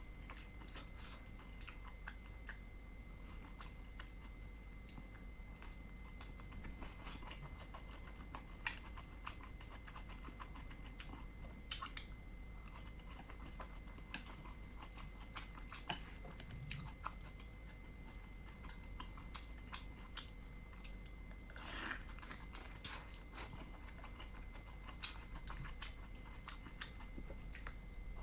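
Close-miked chewing and biting of dumplings: irregular wet clicks and smacks of the mouth working the food.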